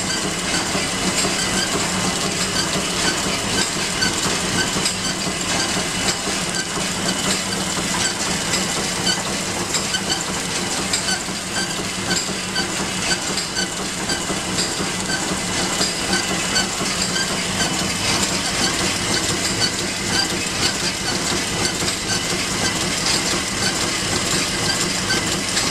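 BAOPACK CB-VG42A vertical form-fill-seal packing machine running at speed, a steady mechanical clatter with hiss and light rapid ticking as it forms, fills and seals pouches.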